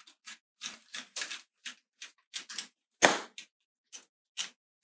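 A long screw being turned out of a Fibaro Walli Outlet's cover frame with a screwdriver: short clicking scrapes, about two or three a second, with a louder knock about three seconds in.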